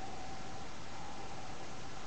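Steady hiss of recording noise from a low-quality webcam microphone, with a faint, slightly wavering high tone under it and no voice.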